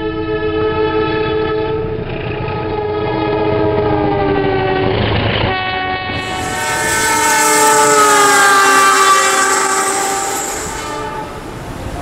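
Indonesian Railways diesel locomotive air horns sounding Semboyan 35, a multi-note chord held for about five seconds, its pitch sagging near the end. A second horn chord follows, blown for about five seconds with its pitch sliding steadily down as the train passes, over the hiss and clatter of wheels on the rails.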